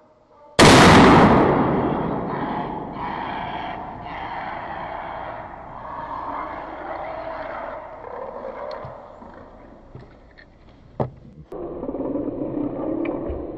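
Gunshots at a running wild boar: one very loud shot about half a second in, its noise dying away slowly among the trees, and a second, shorter crack a couple of seconds before the end.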